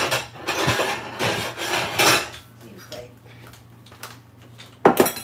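Dishes clattering as plates and a bowl are handled and moved on a table, a busy rattle for the first two seconds, then lighter handling and a single sharp knock near the end.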